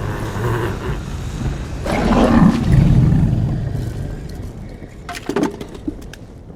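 A dragon's growling roar from the film's sound effects, loudest about two to three seconds in and then fading away. A few sharp clicks follow near the end.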